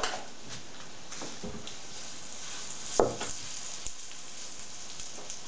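Pear pancakes frying in oil in a cast-iron skillet, a steady sizzle, while batter is spooned into the hot pan. One sharp knock about three seconds in.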